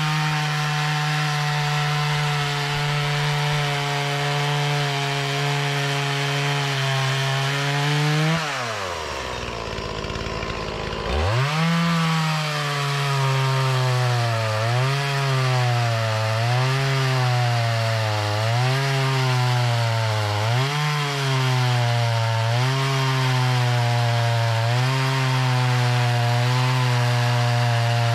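Dnipro-M two-stroke chainsaw ripping a log along the grain with a standard crosscut chain, engine at full throttle. About 8 s in the revs fall away to a low idle, then rise back to full speed about 11 s in; after that the engine note dips and recovers every couple of seconds as the chain loads in the cut.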